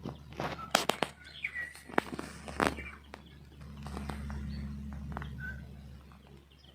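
Footsteps crunching through bush undergrowth, with small birds chirping now and then. The steps thin out about three seconds in, and a low steady rumble rises for a couple of seconds.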